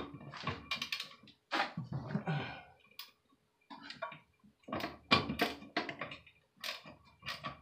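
Vice grip turning a corroded, rusted toilet tank bolt loose: irregular small metallic clicks and taps of the tool slipping and biting on the nut.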